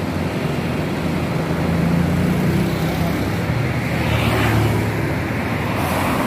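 Road traffic: vehicle engines making a steady low hum, with vehicles passing close by, a car about six seconds in.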